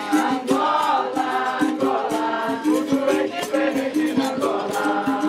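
Capoeira Angola roda music: berimbaus repeating a short pattern of low notes with a caxixi-like rattle, regular sharp drum and percussion strokes, and voices singing over them.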